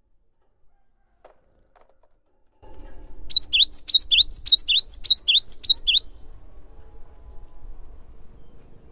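Cinereous tit singing a quick run of paired whistled notes, alternating high and low at about four to five notes a second, for nearly three seconds starting about three seconds in.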